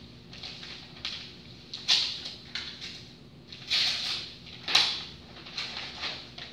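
Sheets of paper rustling and sliding in several short, crisp bursts as a document is handled and leafed through.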